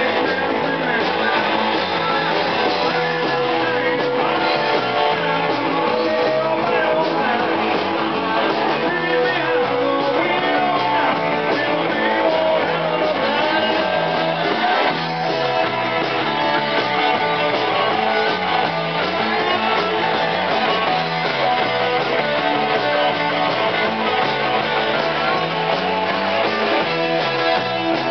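Live rock band playing loud and steady: drums, electric bass and guitar.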